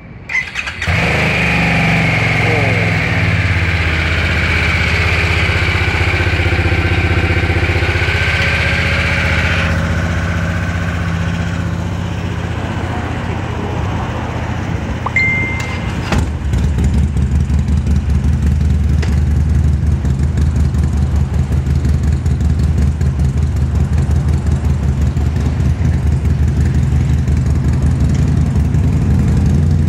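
Harley-Davidson Sportster S's liquid-cooled V-twin starting up under a second in and idling steadily. After about 16 seconds a louder air-cooled Harley-Davidson V-twin takes over, idling with a deep, even, pulsing beat.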